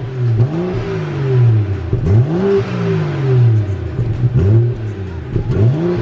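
BMW 435i's turbocharged straight-six revved in neutral through its completely stock exhaust, about four blips that each climb quickly and fall back to idle. A fairly subdued stock note, which the owner calls "really nothing".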